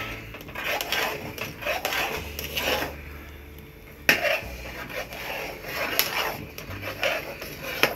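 Metal spoon scraping and stirring around a metal pressure-cooker pot of rice and milk, in repeated strokes, with a few sharp clinks against the pot. This is rice kheer being stirred while it cooks down and thickens.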